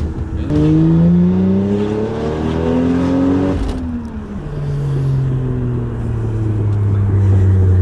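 Toyota 1JZ-GTE turbocharged straight-six accelerating hard in gear, its note rising steadily for about three seconds. The revs then drop sharply at an upshift with a brief low thump. After that the engine pulls on at lower revs, its pitch sagging slowly.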